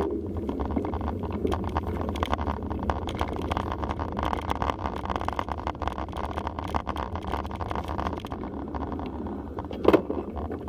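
Mountain bike rolling over a rough dirt single track: steady rumble of tyres and wind on the microphone, with constant rattling clicks from the bike.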